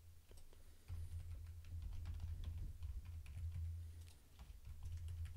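Computer keyboard typing: a run of irregular, quick keystrokes, over a low steady hum.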